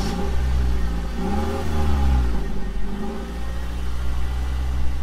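A loud, steady, low engine-like drone whose pitch swells up and back down once, about one and a half to two and a half seconds in.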